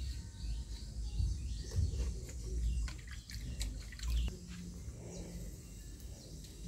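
Birds chirping, with sharp splashes and clicks of leaves being washed by hand in a plastic basin of water through the middle of the stretch, over a steady low rumble.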